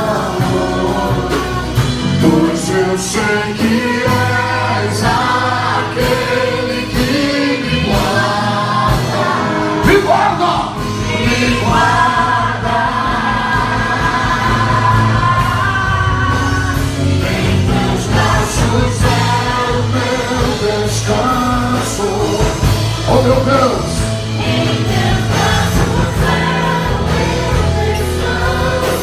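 Live worship music: female worship singers on microphones sing a slow Portuguese worship song over band accompaniment, amplified through the hall's speakers.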